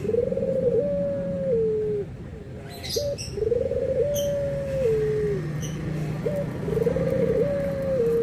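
Puter (Barbary dove) cooing its repeated call, three times: each call a short rising note, then a long coo that drops in pitch in steps. A few short, high chirps from another bird come about three to four seconds in.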